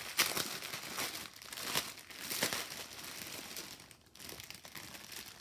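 Small plastic bags of diamond-painting drills crinkling and rustling as they are handled and sorted through, in irregular crackles that are loudest in the first half.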